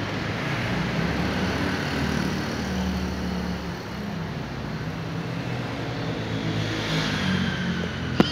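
Steady background rumble of motor traffic with a low engine hum that drifts in pitch. A sharp click comes near the end.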